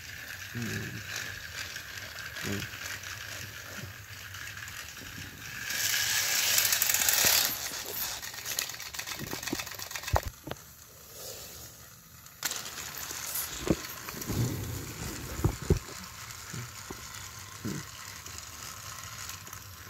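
Battery-powered Thomas & Friends toy engine's small gear motor whirring as it runs along plastic track. A loud rushing noise comes about six seconds in and lasts a second and a half, and a few sharp knocks come later.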